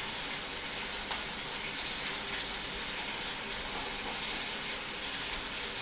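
Lamb chops and a buttered flatbread frying in hot pans: a steady sizzling hiss with fine crackles.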